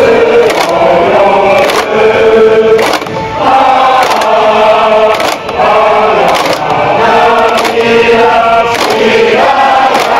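A large group of mostly male voices sings a high-school school song together in long held notes, with a regular beat under it.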